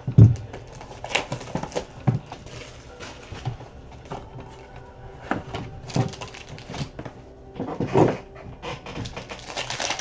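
A cardboard trading-card box and plastic-sleeved cards being handled on a table: scattered knocks and rustling. The sharpest knocks come just after the start and again about eight seconds in.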